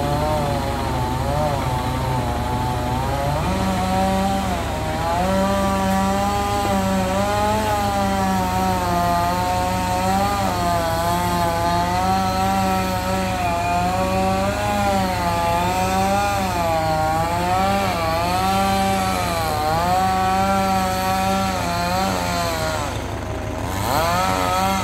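Crane's engine running steadily under a whine that keeps wavering up and down in pitch as the machine works. The engine speeds up about three seconds in and slows again near the end.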